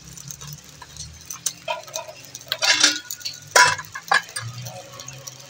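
Metal spoon scraping and clinking against a clay cooking pot while stirring onions in oil, with scattered small clicks and a few louder knocks a little past the middle.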